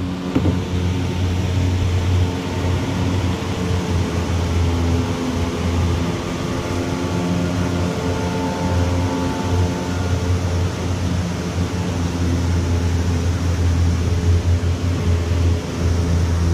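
Steady loud roar of water pouring through a hydroelectric dam's spillway gates, with a steady low hum underneath.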